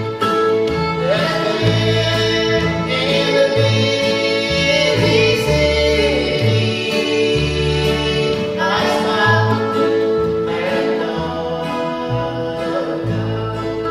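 Old-time string band playing a gospel song: acoustic guitar, mandolin, fiddle and upright bass stepping from note to note, with a man and a woman singing in harmony.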